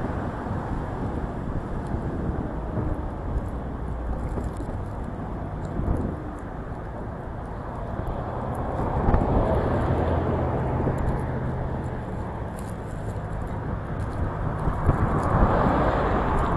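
Wind buffeting the microphone over the low hum of a car driving, gusting louder about nine seconds in and again near the end.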